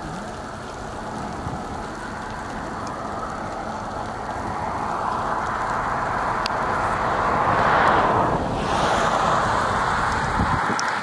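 Wind gusting across the open field, a rushing noise that builds to its strongest about eight seconds in, eases for a moment and then stays strong.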